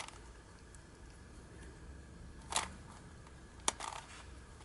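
Dayan 16-axis twisty puzzle being turned by hand, its plastic pieces clicking as layers are twisted: a click right at the start, another a little past halfway, and a sharper one about a second later.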